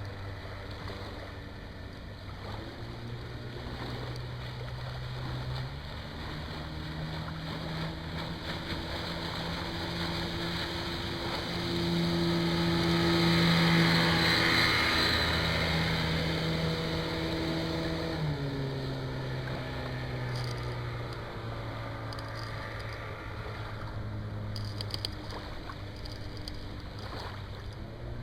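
25 hp Johnson two-stroke outboard motor driving a small aluminum boat at speed. The engine pitch climbs in steps over the first several seconds as the throttle opens, holds, then drops back about two-thirds of the way through; the sound grows louder to a peak near the middle and then fades.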